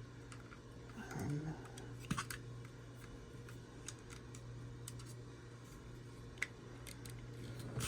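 Scattered light clicks and faint rustling of a toy figure's plastic packaging tray and foam being handled as the figure is taken out, over a steady low electrical hum.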